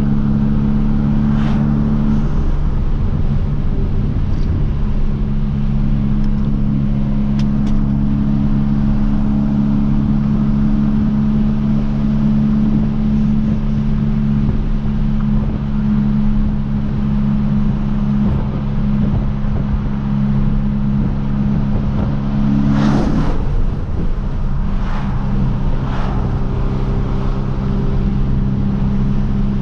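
Hyundai Veloster Turbo's 1.6-litre turbocharged four-cylinder engine and catless, tuned exhaust droning steadily at cruise. About three quarters of the way through the drone breaks and comes back at a different pitch, with a few short sharp cracks around it.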